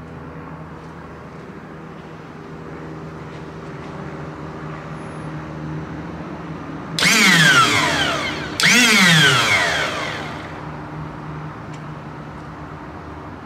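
Lowrider hydraulic front pump motor switched on twice, about seven seconds in: two loud runs of a second or two each, with a whine that drops in pitch as the motor and pump gear spin. The car is not lifting because pressure bleeds inside the aluminum pump block, which the mechanic assumes comes from pulled-out gear bolt threads and a blown O-ring.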